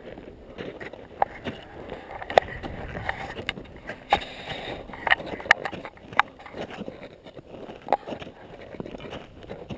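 Climbers' footsteps crunching in snow, with irregular sharp clicks and knocks from their gear.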